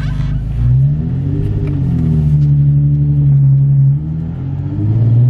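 Nissan 350Z's 3.5-litre V6 heard from inside the cabin, revving up as the car pulls away about a second in and holding a steady note. The note drops briefly about four seconds in, then climbs again.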